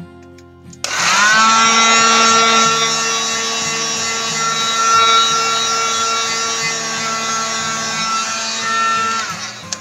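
Electric heat gun switched on about a second in: its fan motor spins up with a rising whine, then runs with a steady blowing hiss and hum. It is switched off near the end, its whine falling as it winds down.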